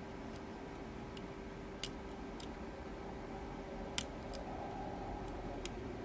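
Small, sparse metallic clicks of a dimple pick lifting the pin-in-pin stacks inside a Mul-T-Lock C-13 padlock under tension, about eight clicks, the sharpest about four seconds in. A faint steady low hum lies underneath.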